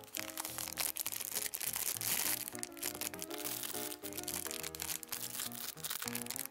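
Background music with a bouncy melody over the crinkling and crackling of plastic candy wrappers being handled and torn open.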